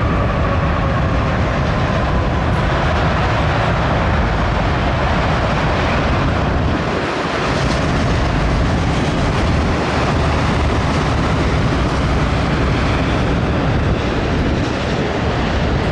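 Freight train of autorack cars rolling steadily past, a continuous rumble of steel wheels on rail with some clickety-clack at the rail joints.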